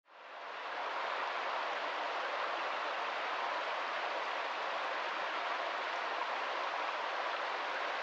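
Small woodland stream splashing down a rocky cascade: a steady sound of running water that fades in over the first second.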